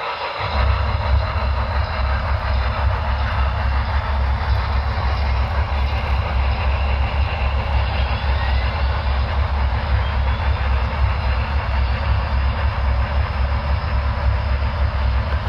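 HO scale model of a New York Central Niagara 4-8-4 steam locomotive running past with its train: a steady low rumble under an even hiss. The rumble comes in about half a second in.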